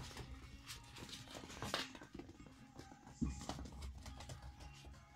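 Toy poodle puppies playing on a wooden floor: scattered clicks and knocks of paws, claws and toys, two of them sharper, over faint background music.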